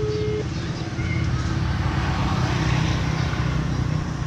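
A motor engine running steadily nearby, a low hum with a rushing noise over it.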